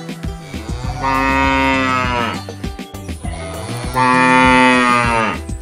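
Domestic cow mooing twice: two long, drawn-out moos about three seconds apart.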